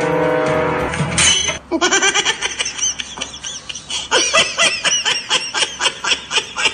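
Music for about the first second and a half, then rapid, high-pitched giggling laughter, several short rising-and-falling bursts a second.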